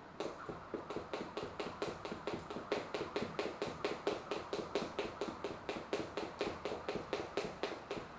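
Speed jump rope being skipped fast in an alternate-foot step: the rope ticks against the floor in a quick, even rhythm of about five strikes a second, with light foot landings.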